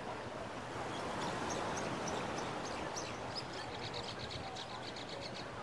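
Ocean surf washing steadily on a beach, with a small bird chirping in short high notes over it, ending in a quick run of chirps about four seconds in.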